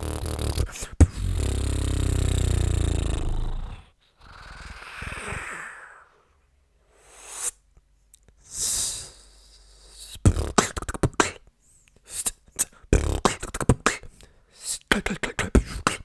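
Freestyle beatboxing, close to a microphone: a long low humming bass for the first few seconds, then a few hissing sounds with short pauses, and from about ten seconds in a fast run of sharp percussive mouth sounds.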